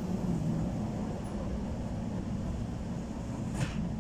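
An electric commuter train carriage running along the line, heard from inside: a steady low rumble with a constant hum, and one brief click about three and a half seconds in.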